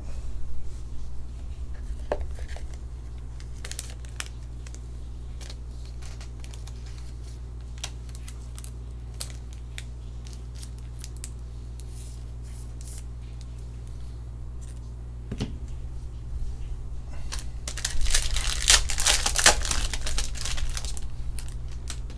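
Foil trading-card pack being torn open: a loud crinkling rip of the wrapper about three-quarters of the way through. Before it come scattered light clicks and rustles of cards and wrappers being handled. A low steady hum runs underneath.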